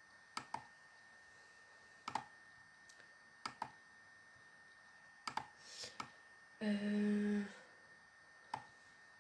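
Computer mouse clicks, a few seconds apart, sometimes in quick pairs. About seven seconds in, a person hums a short 'mm' lasting under a second.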